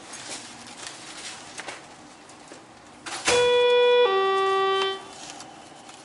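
Elevator hall chime sounding a two-note ding-dong a little past halfway, a higher note then a lower one, each under a second. Two descending notes is the usual signal of a car arriving to go down. Faint handling rustle before it.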